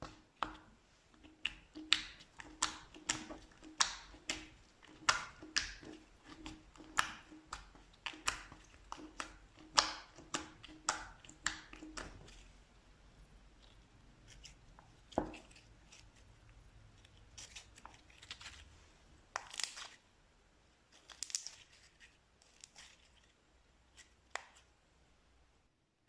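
Slime being pressed and squeezed by hand, giving sharp wet pops and crackles about twice a second for the first twelve seconds, then only now and then.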